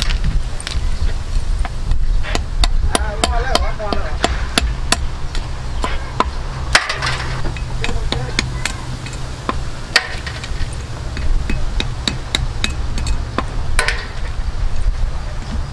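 Cleaver chopping the tips off snail shells on a thick round wooden chopping block: a run of sharp knocks, irregular, about two or three a second.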